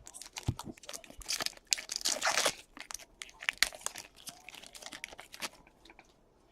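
A trading-card pack wrapper crinkling as it is handled and torn open, loudest for about a second and a half starting a second in. Cards click and slide against one another.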